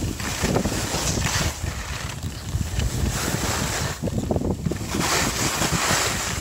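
Wind buffeting a phone's microphone, a heavy rumble with swells of hiss about a second in, a little past three seconds, and again around five seconds.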